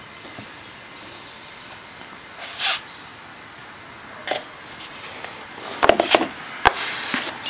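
Handling noises from epoxy work on plywood: a brief scraping swish a couple of seconds in, then a few sharp clicks and taps near the end as the plastic spreader, mixing cup and wooden stir stick are picked up and set down.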